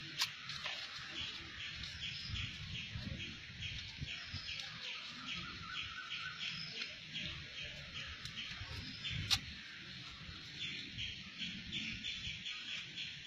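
Steady, rhythmic high chirping from a small animal, about three chirps a second, pausing for about a second around three-quarters of the way through. Two sharp clicks cut in, one at the very start and a louder one about two-thirds of the way through.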